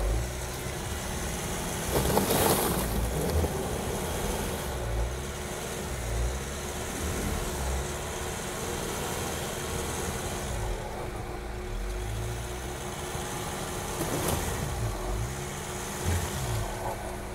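Volkswagen Amarok pickup's engine revving up and down as it churns through deep snow and mud, its tyres throwing snow. There are louder surges about two seconds in and again around fourteen seconds.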